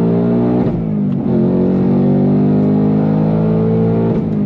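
Ford Mustang Dark Horse's 5.0-litre Coyote V8 at full throttle, heard from inside the cabin: its note climbs steadily as it revs out, dips at an upshift about a second in, then climbs again, dipping once more near the end.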